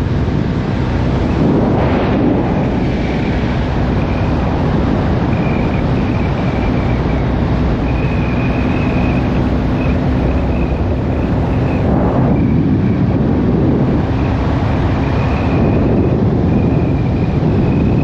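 Wind rush and the steady drone of a BMW R1250GS Adventure's boxer-twin engine cruising at road speed, heard from the riding motorcycle. A brief whoosh comes about two seconds in and another about twelve seconds in.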